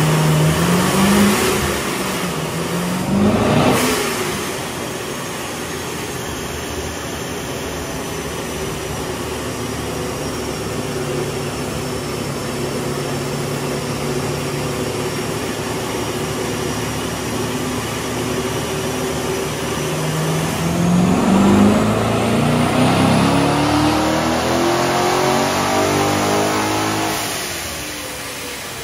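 Supercharged 2014 Corvette Stingray's 6.2 L LT1 V8 run on a chassis dyno. The revs climb at the start and drop off about four seconds in, then the engine holds a steady speed. About twenty seconds in a second long pull climbs for some seven seconds before backing off near the end, with the thin whine of the centrifugal supercharger rising along with the engine.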